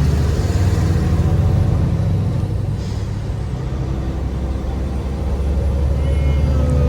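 Road noise inside a moving car: a steady low rumble from the tyres and engine, with a faint falling tone near the end.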